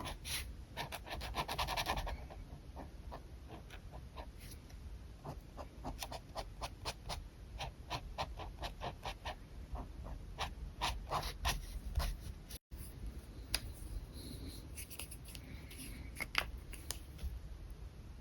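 Pen scratching on paper in quick sketching strokes. A fast flurry of hatching comes near the start, then a steady run of short strokes at about three or four a second, with a brief dropout about two-thirds through.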